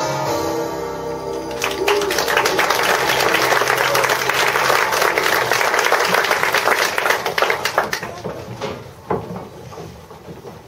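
A children's choir holds the final chord of a song, then the audience applauds for several seconds, the clapping thinning out to scattered claps near the end.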